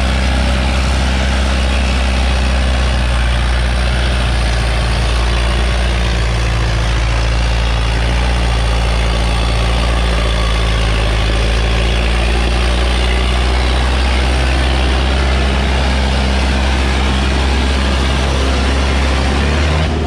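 Sonalika DI-750 III tractor's diesel engine running steadily under load as it pulls two harrows through the soil, a low, even engine note with no change in pace.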